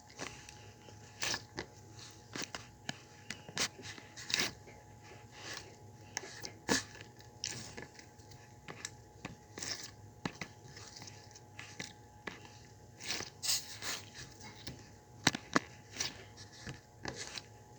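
Clear slime being squished and worked, making irregular wet clicks and pops.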